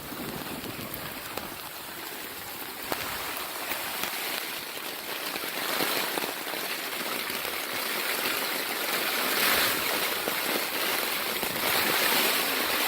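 Heavy rain falling in gusty storm wind: a steady rushing hiss that grows slowly louder, with the odd faint tick of drops.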